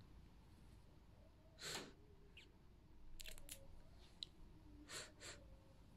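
Near silence: room tone with a few faint soft noises and small clicks.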